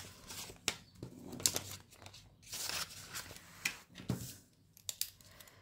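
Quiet handling sounds at a table: soft rustles of paper with scattered light clicks and taps, as a savings tracker is filled in with a pen.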